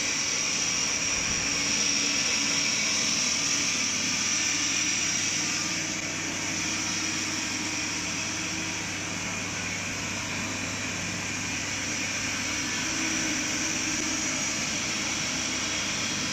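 High-speed four-output napkin paper making machine running steadily: a continuous mechanical whir with a constant low hum underneath and a high-pitched hiss on top.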